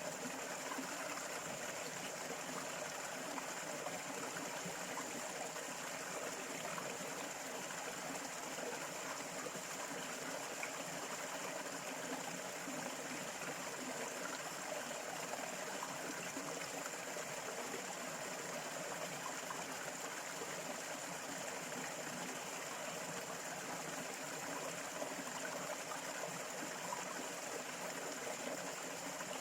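Small stream running and trickling steadily, an even burble with no pauses. A faint steady high hiss sits under the water.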